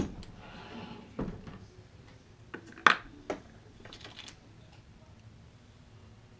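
Brass cartridges and a reloading press being handled at the bench: a series of sharp clicks and knocks, the loudest about three seconds in, and a quick cluster of light clicks about four seconds in.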